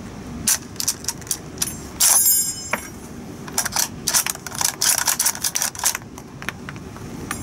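Pattern 1914 .303 bolt-action rifle being loaded and cycled by hand: rimmed .303 rounds are pressed down from a charger clip into the magazine, and then the bolt is worked back and forth to feed them, giving sharp metallic clicks and clacks. There is a brief ringing metal clatter about two seconds in. The rounds are being cycled to test whether they rim-jam.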